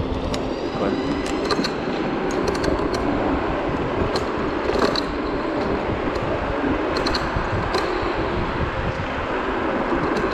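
Zero 10x electric scooter rolling fast over city pavement: a steady road and tyre rumble with wind buffeting the microphone, broken by irregular sharp clicks and rattles.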